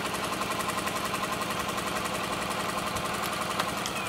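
Homemade Stirling engine running steadily while it drives a small generator, with a quick, even beat. A light click near the end.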